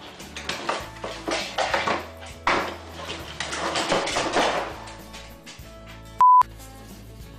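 A dog drags a cardboard box across and off a kitchen counter, making scraping and clattering noises for about four and a half seconds, over background music. Near the end comes a short, loud, steady censor bleep.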